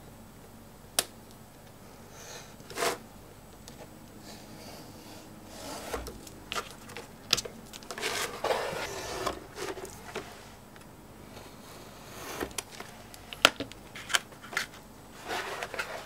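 Hands handling pieces of brown bridle leather and tools on a cutting mat: rustling and scraping as the leather is slid and moved, with scattered sharp taps and clicks from tools being put down, the loudest a few seconds before the end.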